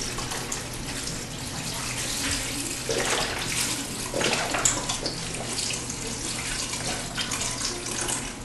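Chicken broth pouring from two cartons into a stainless stockpot of soaked pinto beans, a steady splashing stream that gets louder about three and four seconds in.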